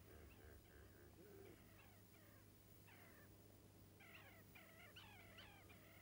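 Faint bird calls at the waterside: short notes that glide downward in pitch, several a second, growing busier about four seconds in, over a low steady hum.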